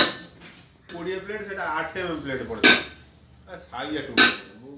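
Three sharp metallic clinks with a short ring, one at the start, one a little under three seconds in and one about four seconds in. They come from a steel pick or screwdriver striking the steel hydraulic jack housing while its seals are worked out.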